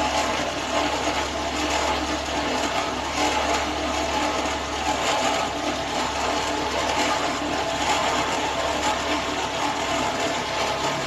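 Renault Sandero 1.6 8-valve engine running with a steady, rapid mechanical clatter, the new noise the owner hears from the cylinder head. He is unsure of the cause and at first thought of an engine mount.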